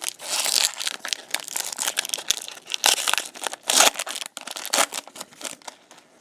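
Plastic trading-card pack wrapper crinkling and tearing as it is handled and opened, a dense run of irregular crackles with brief pauses.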